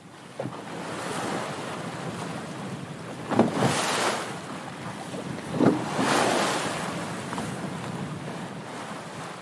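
Small sea waves lapping onto a sandy shore in a steady wash, two of them swelling louder and breaking a couple of seconds apart.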